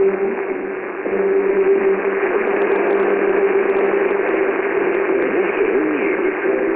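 Shortwave AM radio reception of the 7475 kHz signal: steady hiss and static with a steady low hum-like tone running through it, and faint wavering whistles near the end.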